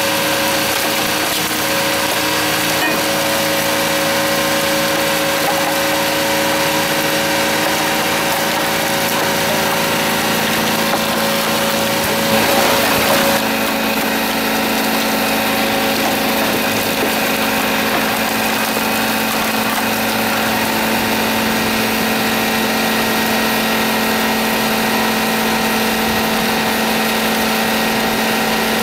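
Engine-driven hydraulic log splitter running with a steady drone. About thirteen seconds in, after a brief louder rush of noise, the drone switches abruptly to a different steady pitch as another splitter's engine is heard.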